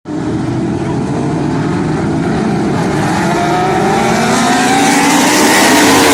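Lightning sprint cars' engines running together on the track, pitch rising and growing louder from about halfway through as the cars accelerate.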